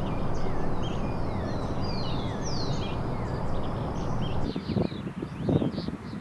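Small birds chirping, many short whistled notes with some sliding down in pitch, over a steady low rumble that drops away about four and a half seconds in. A few soft knocks follow near the end.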